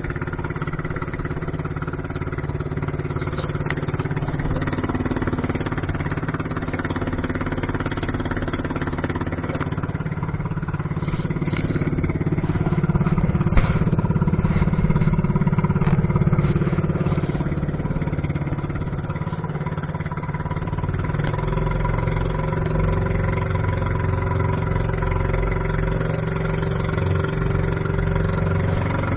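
Small fishing boat's engine running steadily under way, growing louder near the middle and then easing back.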